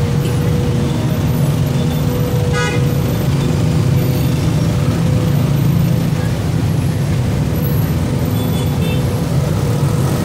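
Steady low rumble of engines and street traffic from a crowded road, with a constant hum over it and one short horn toot about two and a half seconds in.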